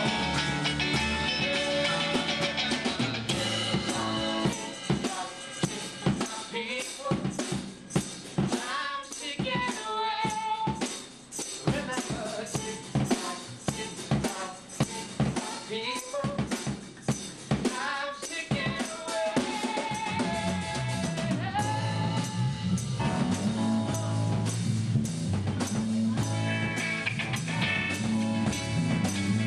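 Rock band rehearsing live: electric guitar, bass, drum kit and singing. About four seconds in the band drops back to a sparse section of sharp drum hits and rimshots with a few sung and guitar lines, and the full band with heavy bass comes back in around twenty seconds in.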